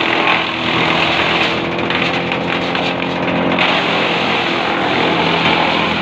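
Tractor-driven wood chipper running, the tractor engine steady under a rough grinding noise as a thin branch is drawn through the feed rollers into the cutter. The grinding swells for about two seconds around the middle.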